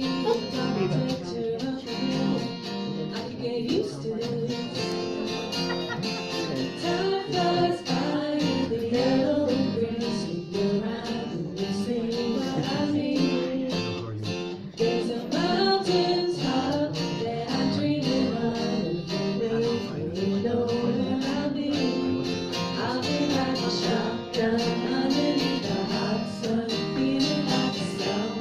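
Acoustic guitar strummed live in a steady rhythm, playing a song's opening instrumental section.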